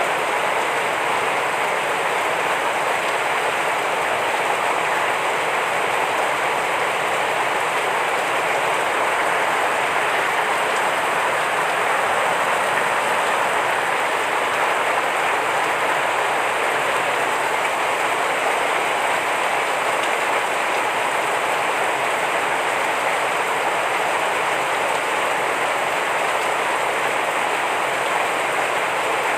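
Heavy rain falling steadily, an even hiss of rainfall with no breaks.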